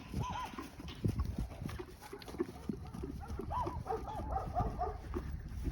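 A horse moving about on the ground, its hooves thudding irregularly, with several groups of short, arching calls from another animal over it.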